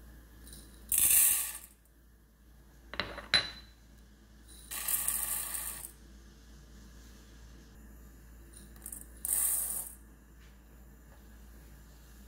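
Dry split lentils poured from a measuring spoon into an empty stainless steel bowl, the grains pattering on the metal in three short pours. Two sharp clicks come about three seconds in.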